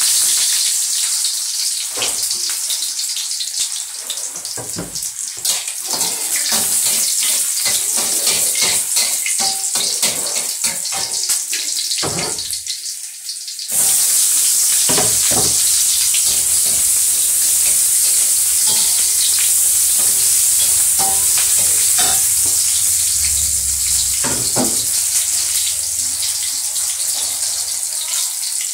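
Sliced onion and garlic sizzling in hot oil in a wok, with the scrape and clatter of a metal spatula stirring them. About fourteen seconds in the sizzle suddenly grows louder and steadier.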